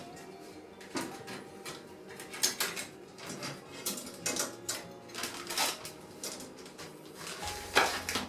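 Metal fire pit parts being handled, clinking and clattering against each other: a dozen or so irregular sharp knocks, with the loudest near the end.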